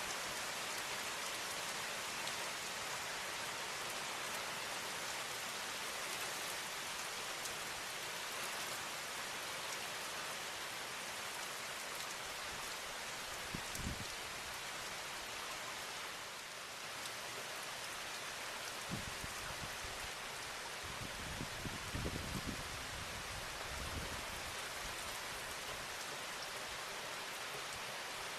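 Heavy rain coming down in sheets, a steady, even hiss of rain with a few brief low thumps around the middle and in the second half.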